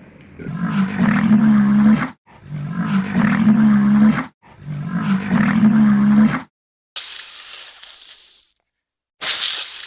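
Three long, rough animal calls in a row, each about two seconds, followed near the end by two hissing noises.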